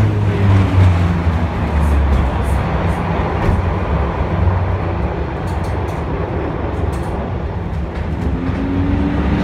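M-24 vintage tram running along its track, heard from inside the wooden car: a steady low motor and wheel rumble with light clicks and rattles, and a rising whine near the end.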